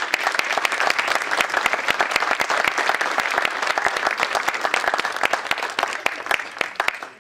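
Small audience applauding, a dense run of hand claps that fades away near the end.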